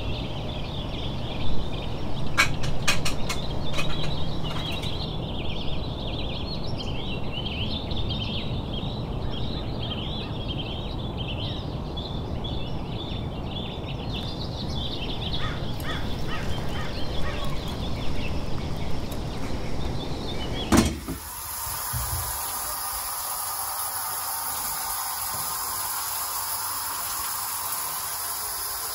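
Birds chirping over a steady low noise. About three quarters through it cuts suddenly to the steady hiss of an outdoor shower's water spray.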